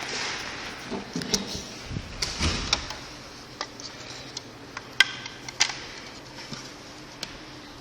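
Scattered light clicks and knocks of tools and battery parts being handled on a workbench, the sharpest two about five seconds in.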